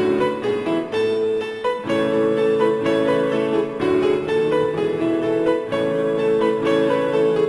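Background music led by piano, with a steady run of notes.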